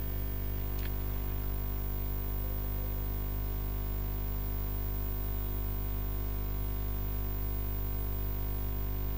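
Steady electrical mains hum with a low buzz and a faint hiss, with one faint click about a second in.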